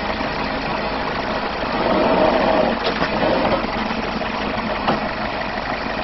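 Backhoe's diesel engine running steadily, with a couple of light knocks near the middle.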